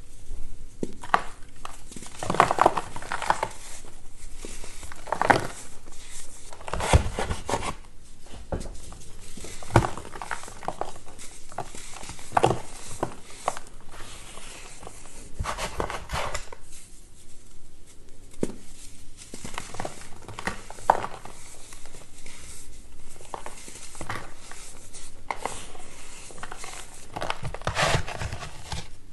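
Hands crushing and snapping dried, moulded blocks of baking soda: irregular clusters of crisp crunches and cracks as the blocks break, with softer crumbling of chunks and powder between.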